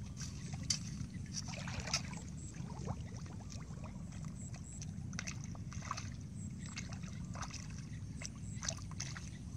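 A metal bar being jabbed into wet mud and shallow water, making scattered splashes and knocks over a steady low rumble.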